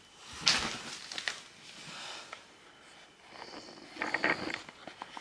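Short bursts of rustling and handling noise, with a few soft clicks, as a sleeve is pulled over a cling-film-wrapped forearm and the camera is moved about.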